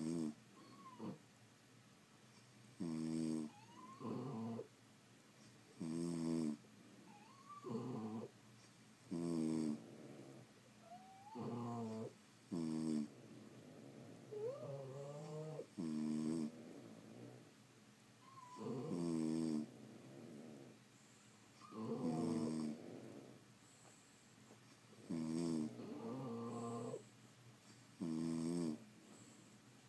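Sleeping French bulldogs snoring: loud, rattling snores in a regular rhythm, roughly one breath every three seconds, several of them ending in a short squeaky whistle. Such heavy snoring is typical of the breed's short, flat muzzle.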